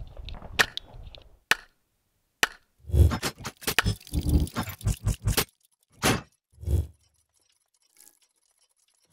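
Two pistol shots within the first second and a half, then, after a short pause, a rapid run of heavy clanks and thuds from a logo sound effect that stops about seven seconds in.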